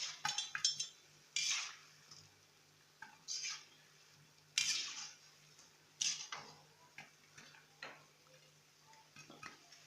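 Popcorn kernels popping inside a lidded cooking pot: single sharp pops and taps against the pot and lid, coming irregularly about once a second.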